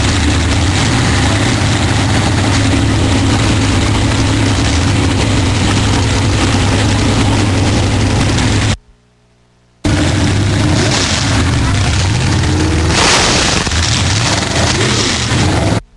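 A car engine running loudly and steadily, with voices mixed in. The sound cuts off abruptly for about a second just past the halfway point, then returns with a brighter, hissier edge near the end.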